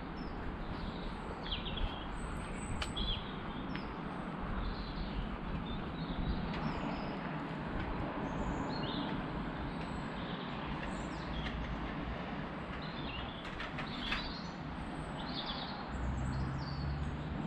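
Small songbirds chirping in short, scattered calls over a steady outdoor hiss of background noise. A low rumble joins near the end.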